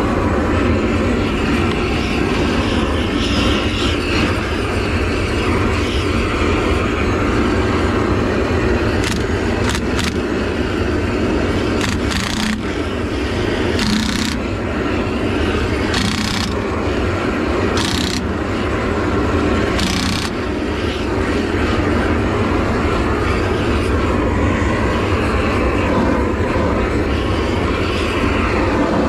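A heating torch's flame running with a steady, loud rush of noise as it heats a rusted-on, tapered rear axle hub to break it free. A few short bursts of brighter hiss come around the middle.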